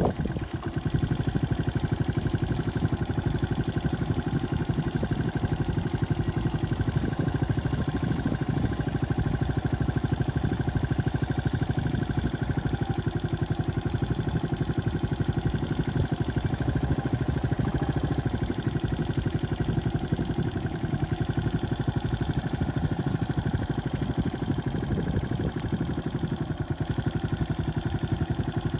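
Small farm-vehicle engine running steadily at low revs while following the herd, with an even, rapid firing beat.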